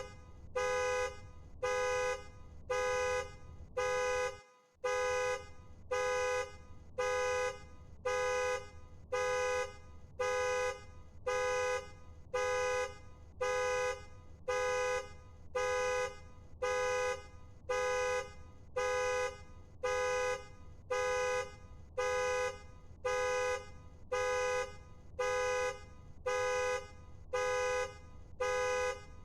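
Car alarm sounding the car's horn in short, evenly spaced blasts, about one a second, over a low steady hum. The audio drops out briefly about four seconds in.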